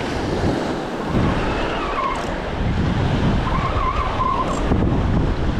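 Strong wind buffeting the microphone over the rush of breaking surf.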